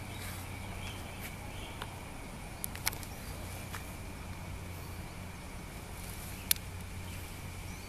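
Outdoor ambience: a steady high-pitched drone over a low hum, with a few sharp clicks, the loudest about six and a half seconds in.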